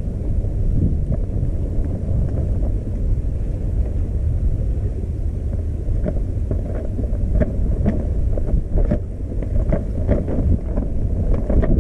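Wind buffeting the microphone in a steady low rumble, over choppy river water. From about halfway through, the water slaps in short splashes.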